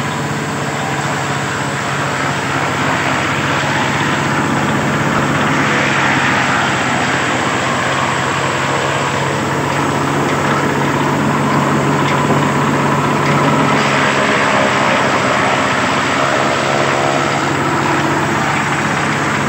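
Forage chopper driven by a single-cylinder diesel engine, running steadily while corn stalks are fed through and blown out the spout. The chopping and blowing rush swells and eases several times over the steady engine hum.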